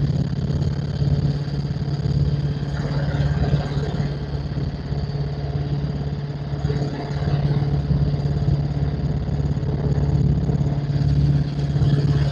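Helicopter in flight: a steady engine and rotor drone with a low, pulsing rumble, held level through a slow pass.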